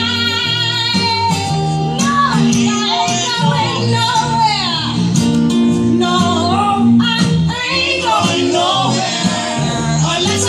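Live slow blues in B-flat: a female vocalist singing long, sliding and bending vocal runs over acoustic guitar and double bass.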